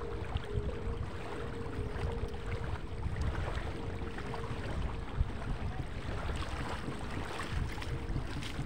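Wind buffeting the microphone as a steady low rumble, with scattered small clicks and knocks and a faint steady hum over the first few seconds.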